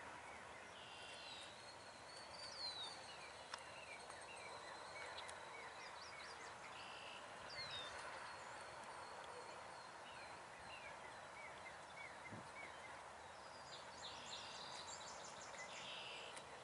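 Faint birdsong from several birds: repeated down-slurred whistles, quick rising chirps and a long, thin, high note. No clear train sound comes through.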